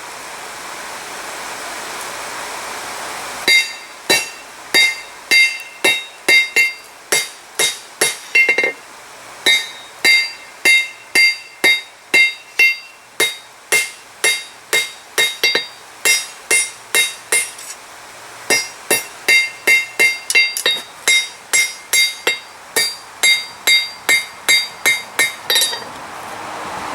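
A hand hammer strikes hot steel on a Peter Wright anvil about twice a second, each blow leaving a bright ring, with a short pause partway through. The smith is forging the steps into a fire steel. The first few seconds hold only a steady rushing noise before the hammering starts.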